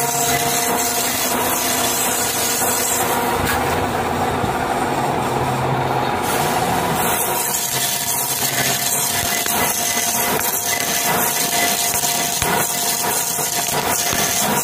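Metal lathe turning a large tiger bronze bushing, the tool taking a rough cut: a steady cutting hiss over the machine's running hum, with a few faint steady tones. The hiss thins for a few seconds around the middle, then comes back.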